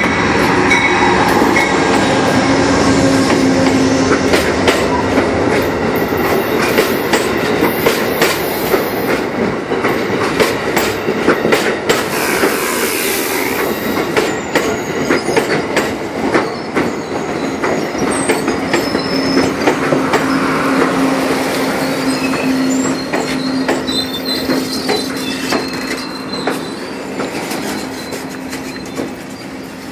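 Amtrak passenger train arriving at a station, led by a GE P42DC diesel locomotive. The locomotive passes close by, then the passenger cars roll past with wheels clicking rapidly over the rail joints. High-pitched squealing comes in during the later seconds as the train slows, and the sound drops off near the end.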